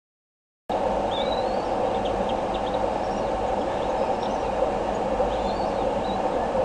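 Silence, then about a second in a steady rushing hiss from the bald eagle nest camera's microphone starts, with faint high bird chirps scattered over it.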